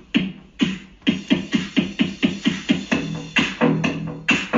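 Electronic music with a beat of sharp, evenly spaced hits, about two a second at first and quickening to about four a second after about a second.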